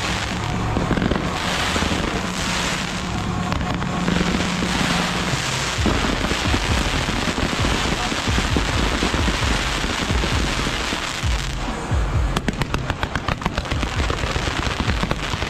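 Fireworks and firecrackers going off in a dense, continuous crackle. From about twelve seconds in comes a rapid string of sharp pops.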